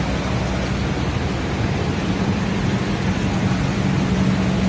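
Steady road noise inside a moving car on a wet, flooded road: a constant low hum under an even hiss of tyres and water.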